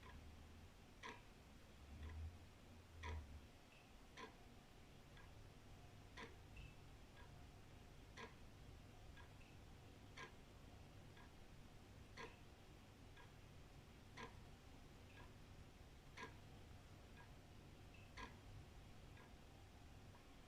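Old wall clock ticking faintly, about once a second, with a louder tick alternating with a softer one. A low steady rumble sits underneath and swells briefly about two seconds in.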